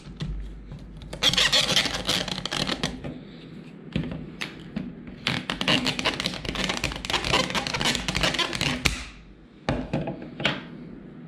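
Plastic spring-loaded camera clamps being handled: rapid clicking, rattling and scraping in two long stretches, then two sharp single clicks near the end.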